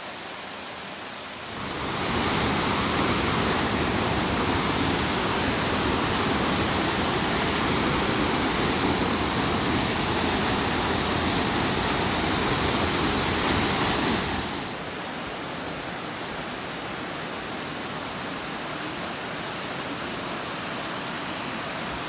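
Waterfall: a steady rush of falling water that gets louder about two seconds in, then drops to a softer rush about fourteen seconds in.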